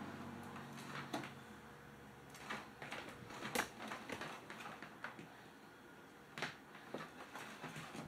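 Electrolux Ultralux vacuum cleaner's repaired cord reel rewinding the power cord, guided by hand: scattered light clicks and knocks as the cord drags over the wooden floor and winds into the machine.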